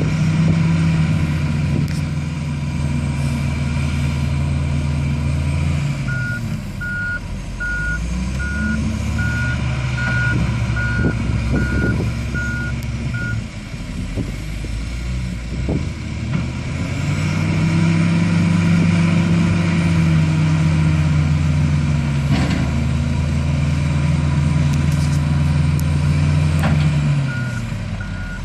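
Hitachi ZW310 wheel loader's diesel engine revving up under load and dropping back, twice, while the machine works a sand pile. Its reversing alarm beeps steadily for several seconds in the first half and starts again near the end, and a few sharp knocks sound over the engine.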